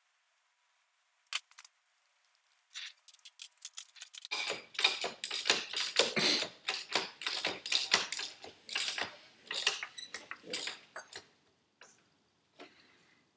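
Quick, irregular metallic clicking and clatter of metal parts being worked at a lathe's four-jaw chuck as a small turbocharger part is loosened and taken out. The clatter starts after a few quiet seconds with one early click, runs for about seven seconds, and ends with two lone clicks.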